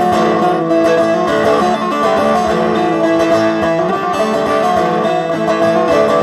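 A bağlama (long-necked Turkish saz) played in a rapid run of plucked notes: an instrumental interlude between sung verses of a folk song.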